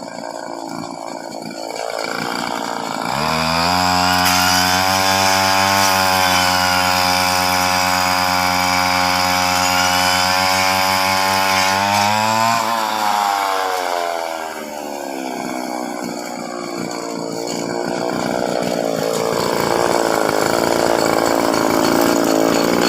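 Chainsaw running fast at a steady pitch from about three seconds in, then winding down a little before the middle. A rougher, noisier running sound then builds again toward the end.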